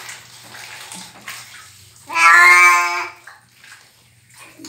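A cat being bathed lets out one loud, drawn-out meow of about a second, roughly two seconds in. Around it, water splashes and hands rub through the wet fur in the bucket.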